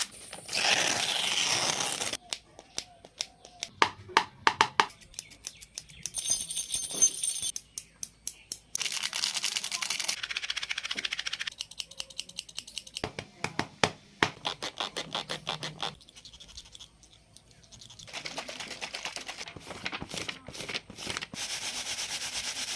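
A series of short sounds made with everyday household objects, one after another: runs of sharp clicks and taps alternating with stretches of scraping, hiss-like noise lasting a second or two each.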